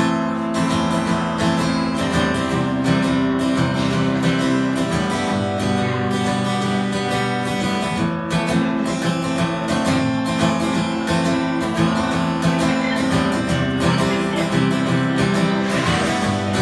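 Acoustic guitar strummed steadily in a regular rhythm, playing the instrumental intro of a song before the vocals come in.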